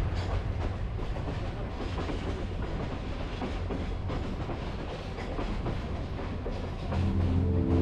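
Parabat Express passenger train running, heard from inside a carriage at the window: a steady rumble with the clatter of wheels over the track. Background music comes in near the end.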